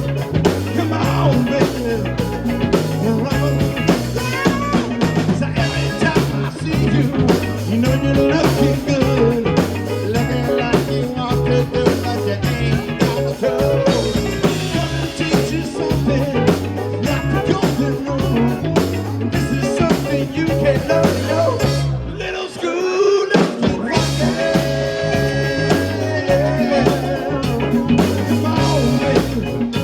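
Live rock band playing, with drum kit, bass and guitar. The bass and drums drop out for about a second just past the two-thirds mark, then the band comes back in.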